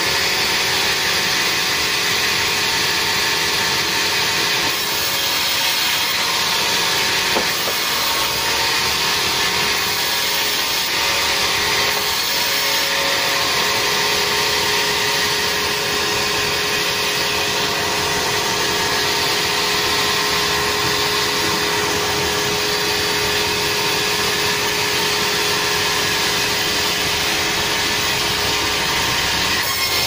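Large vertical band sawmill running continuously as its blade cuts lengthwise through timber, a steady, loud, even sawing noise.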